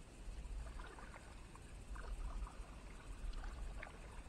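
Kayak paddle strokes: the blade dipping in and water splashing and dripping off it, about one stroke every second and a half, over a low rumble.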